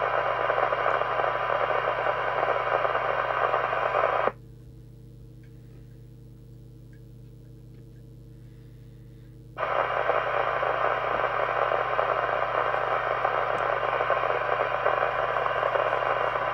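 Midland 77-095 CB radio's speaker hissing on a weak test signal, cutting off suddenly about four seconds in and coming back about five seconds later, leaving only a faint hum in between. The squelch is dropping in and out on its own even at minimum setting, which the owner puts down to a wax-contaminated squelch preset.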